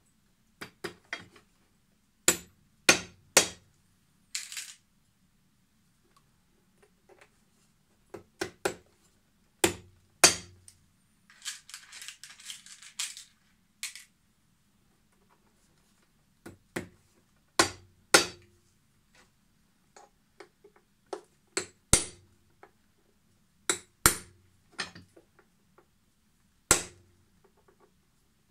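Small hammer tapping nails through a steel toe plate into a leather boot sole: sharp single taps, often in quick pairs or threes, with pauses between. A short scratchy scraping about twelve seconds in.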